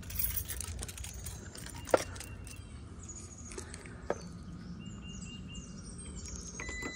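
Birds chirping outdoors over a low steady background noise, with two sharp clicks, the louder about two seconds in and another about four seconds in.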